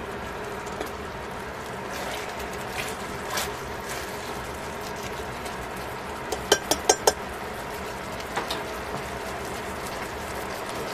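Sliced pork sizzling and bubbling in sauce in a stainless steel pan. A little past halfway, a quick run of about five sharp clicks as tongs knock against the pan.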